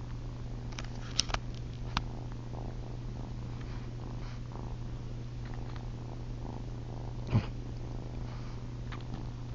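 Kitten purring steadily, a continuous low rumble, while suckling on a person's chin. A few sharp clicks come through, the loudest about seven seconds in.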